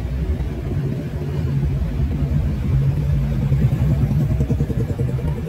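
Engine and road rumble of a moving vehicle heard from inside it, a steady low drone.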